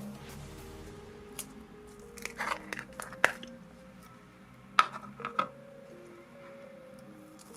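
Slime being mixed, giving irregular sharp clicks and crackles, the loudest about three seconds in and again near five seconds, over faint background music.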